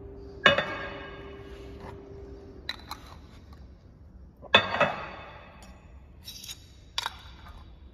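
Glass jars with metal lids set down on a stainless steel plate: two ringing clinks, about half a second in and about four and a half seconds in, each fading over a second or so, with lighter clicks and knocks between them.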